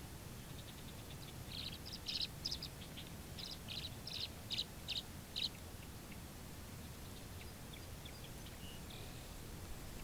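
Tree swallows twittering: a quick run of short, bright chirps for about four seconds, then fainter scattered chirps near the end, over steady low background noise.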